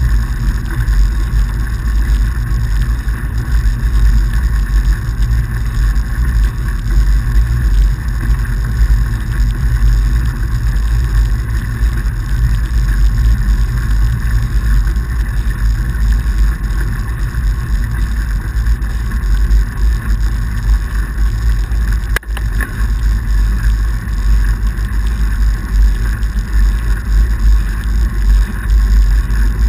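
Steady, loud rumble of riding noise from a fat bike rolling over packed snow, with wind on the action camera's microphone. The noise dips briefly about three-quarters of the way through.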